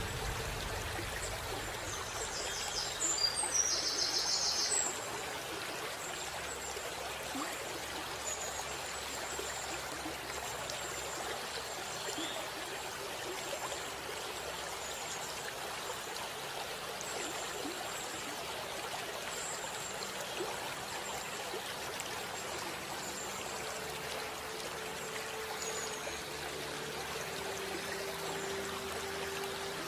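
Steady rush of running water, like a stream, as an even hiss, with faint short high chirps now and then. A brief, louder high-pitched burst comes about three to five seconds in, and a low steady tone joins near the end.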